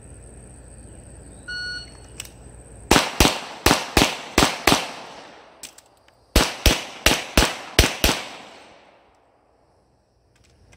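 A shot-timer beep, then a pistol fires six quick shots, stops for about a second and a half for the magazine change, and fires six more quick shots. The whole string, beep to last shot, takes about 6.6 seconds.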